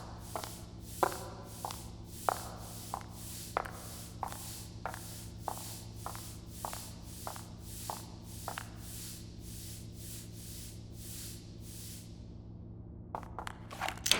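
Steady footsteps, about one and a half steps a second, over a low steady ambient hum. They stop about twelve seconds in, and a few sharp clicks follow near the end.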